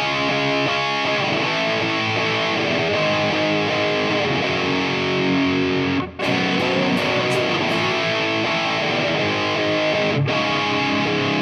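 Ibanez electric guitar played through a multi-effects unit on a crunch (light overdrive) preset: chords and lines ringing on, cutting out briefly about six and ten seconds in.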